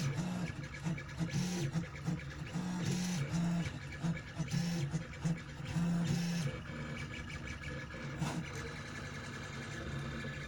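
K8200 3D printer's stepper motors humming in short stop-start moves that change pitch with each move as the head lays down the parts; the moves settle into a quieter, steadier run near the end.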